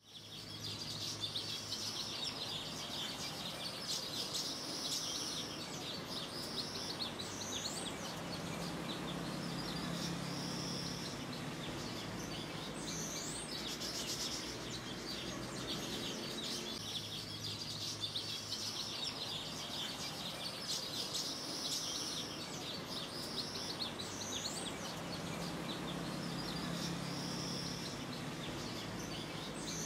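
Forest ambience of birds chirping, with short rising whistled calls, over a steady background hiss. The same run of calls repeats after about sixteen seconds, like a looped track.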